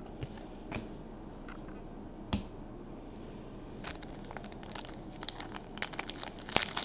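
A few soft taps of cards being handled, then from about four seconds in the crinkle of a foil trading-card pack wrapper being gripped and worked open, growing busier near the end.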